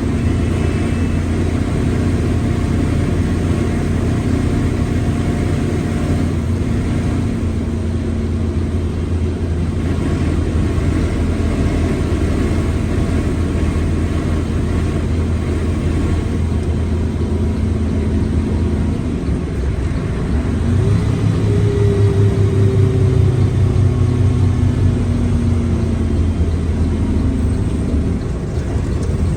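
Mercedes-Benz OF1721L BlueTec 5 bus engine running steadily with a low drone. About two-thirds of the way in it pulls harder and grows louder, and a higher whine glides down in pitch over several seconds: the growling gearbox.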